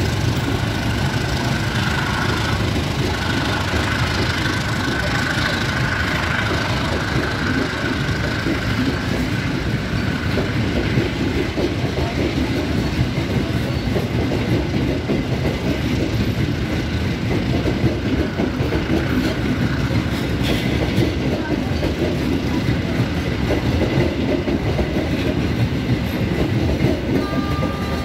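Indonesian passenger train coaches rolling out of the station, a steady rumble of wheels on rail with clickety-clack over the joints. A thin high squeal runs for several seconds in the first third.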